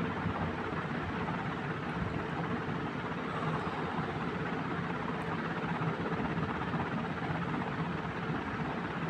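Steady mechanical hum with a constant rushing noise that stays even throughout, like a running motor.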